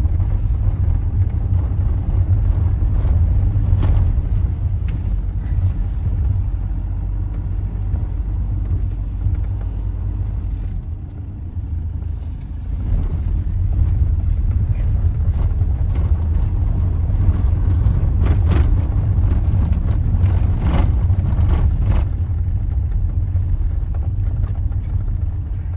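Low, steady rumble of a car driving slowly over cobblestones, heard from inside the cabin. It eases briefly about halfway, and a few sharp knocks and rattles come in the last third.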